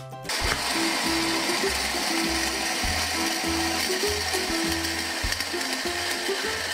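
Light background music with a repeating bass line and a simple melody, over a continuous dense mechanical rattling that begins about half a second in.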